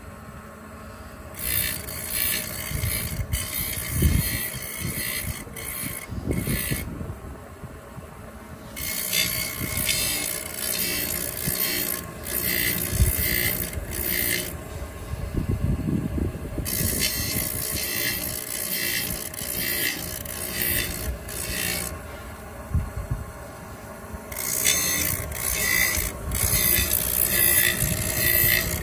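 Blade grinding machine sharpening a blade. The grinding hiss comes in four long passes of several seconds each, with short quieter gaps between them, over a steady machine hum and occasional low knocks.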